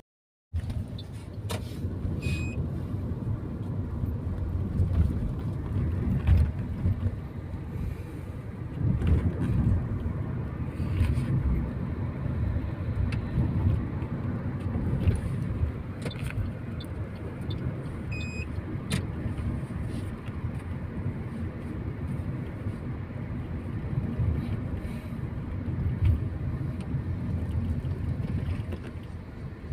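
Steady low road and engine rumble heard from inside a moving taxi, with a few faint clicks and two short high beeps.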